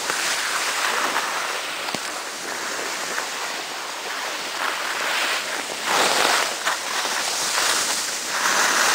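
Skis hissing and scraping over packed snow on a downhill run, with wind rushing over the microphone. The hiss swells louder about six seconds in and again near the end.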